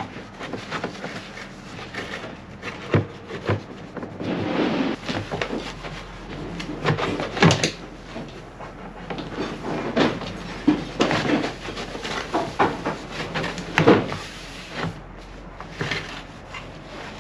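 Microfiber cloth rubbing wax into a fiberglass engine shroud, with a few sharp knocks as the shroud is handled on a plastic bin.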